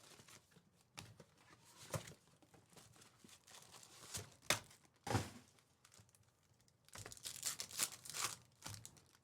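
Foil trading-card pack wrappers crinkling and tearing as packs are ripped open, with scattered short rustles and clicks of cards being handled.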